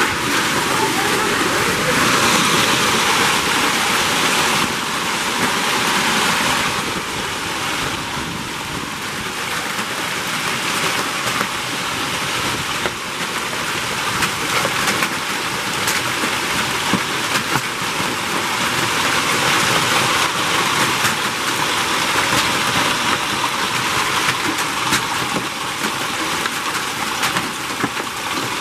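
Hailstorm: heavy rain and hail pelting down, a loud, dense hiss thick with small sharp ticks of hailstones striking.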